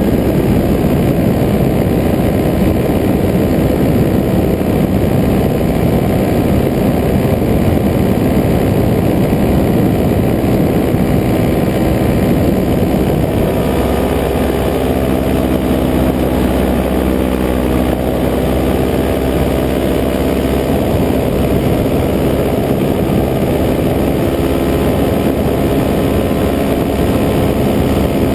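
Paramotor's engine and propeller running steadily in flight, a loud constant drone. The engine note becomes more clearly pitched for several seconds around the middle.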